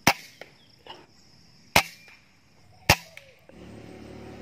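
Three sharp air rifle shots, about a second or more apart, each a short crack with a little fainter clicking between them. A steady low hum comes in near the end.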